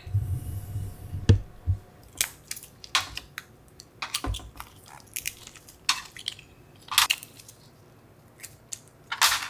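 Cockle shells being pried open with a metal spoon: sharp, irregular cracks and clicks of shell and spoon, roughly one or two a second, with a cluster of cracks near the end. Low thuds come in the first second or so.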